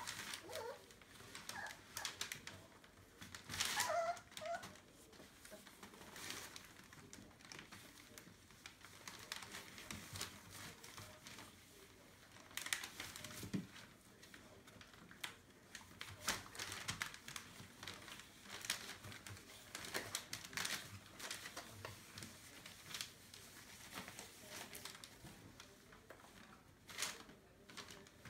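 Newspaper bedding crinkling and rustling on and off as Entlebucher puppies and their mother move and paw about on it, with a short, high, wavering puppy squeak about four seconds in.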